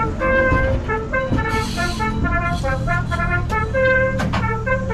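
Brass band march music by a military band, short notes in a quick, even rhythm, over a low rumble.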